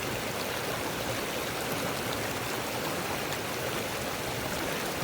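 Small mountain stream running steadily over its bed, an even rushing of water.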